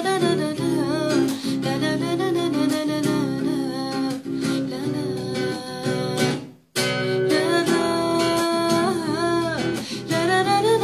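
A woman singing a slow, wavering melody to her own acoustic guitar accompaniment, strummed and plucked. The sound cuts out for a moment about six and a half seconds in, then resumes.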